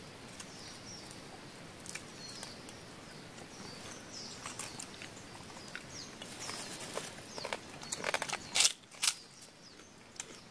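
A person eating close to the microphone: scattered crunches and mouth clicks, with a few louder crunches about eight to nine seconds in. Forest birds chirp faintly in the background.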